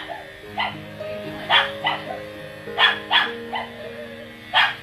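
A dog barking in short repeated barks, several in quick pairs, over background music with sustained notes.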